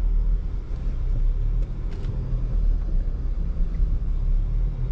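2022 Jeep Grand Cherokee 4xe creeping up a rock obstacle in four-wheel low and rock crawl mode: a steady low rumble, with a couple of faint clicks about two seconds in.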